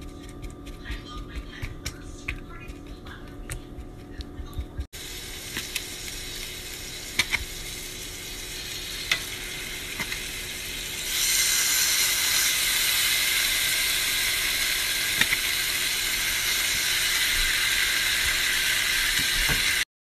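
A fork stirring and clicking among raw seasoned chicken pieces in a bowl; then, after about five seconds, chicken pieces frying in hot oil in a skillet: a steady sizzle with a few sharp clicks, getting louder about eleven seconds in, and cutting off suddenly near the end.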